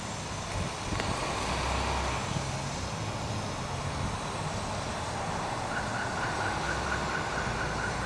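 Hino box truck's diesel engine running as it pulls away along the street, with other traffic. A rapid high beeping, about four beeps a second, starts near the end.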